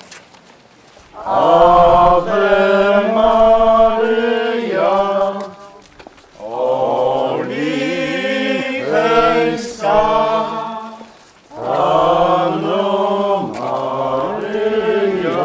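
Voices singing a religious hymn in three long phrases, with short breaths between them.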